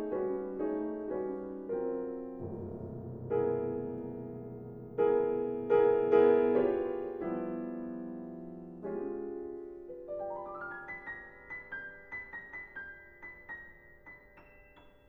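Grand piano played four hands in a contemporary piece: repeated chords, then a low rumbling cluster and loud ringing chords, then from about halfway a quiet line of single high notes climbing step by step over held sustain, fading away near the end.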